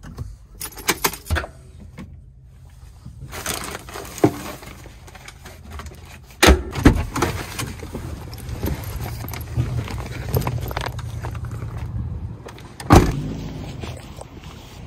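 Fiat Ducato van's cab door being worked: a quick run of clicks from the handle and latch, then a loud thump as the door shuts about six and a half seconds in. Footsteps on tarmac and jangling keys follow, with another sharp knock near the end.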